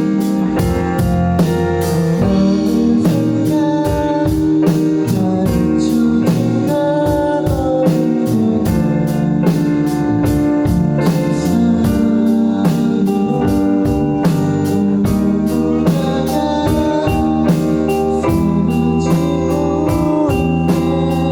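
Pop-ballad band music: sustained organ-like keyboard chords over a steady drum beat.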